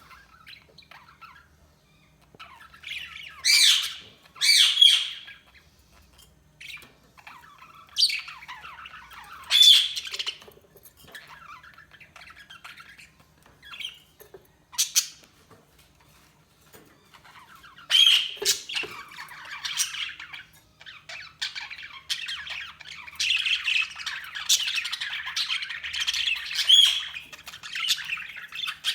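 Budgerigars chirping and squawking in loud bursts with pauses between them, running into steadier warbling chatter about two-thirds of the way through.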